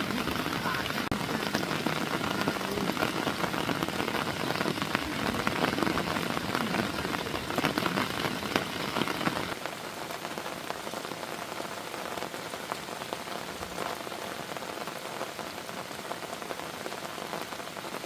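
Heavy rain falling steadily, a dense patter of drops. It turns quieter and thinner about halfway through.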